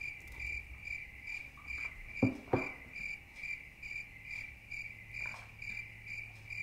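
Cricket chirping in a steady rhythm, about two and a half chirps a second. Two short knocks come about two seconds in.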